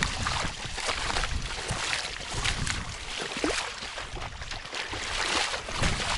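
Water splashing and sloshing around a small boat in shallow water, with irregular knocks and scrapes. There is a short rising squeak about three and a half seconds in.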